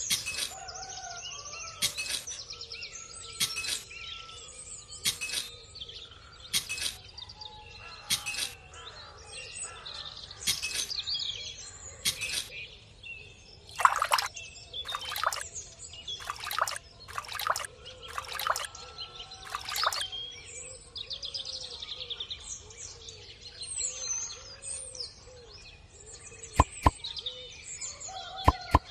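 Small birds chirping and tweeting steadily, over short scraping sounds every second or so as a toy rake works the sand. About halfway through comes a quicker run of louder splashes as water is poured from a small plastic cup into the planting holes one after another.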